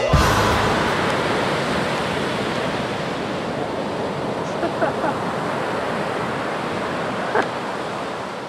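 Ocean surf: waves breaking and washing ashore in a steady rushing that is loudest at the start and eases a little toward the end.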